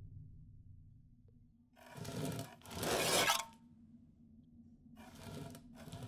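Scraping, rasping sound effects: two loud scrapes about two and three seconds in, then two shorter ones near the end, over a faint low hum.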